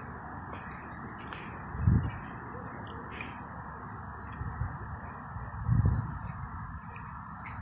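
Insects trilling steadily at a high pitch over a constant low hum, with two low muffled thumps, about two and six seconds in.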